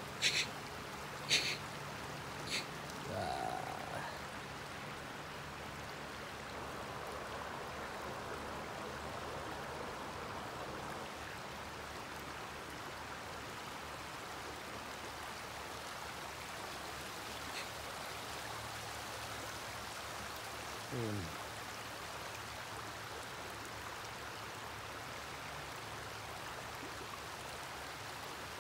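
Steady rush of flowing river water. A few short, sharp high sounds come in the first three seconds, and a brief falling voice-like sound comes about 21 seconds in.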